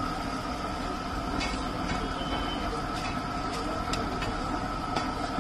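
Steady roar and sizzle of a gas burner under a large iron wok of deep-frying oil, with several sharp metallic clicks as a wire spider strainer stirs the fries and lifts them out of the wok.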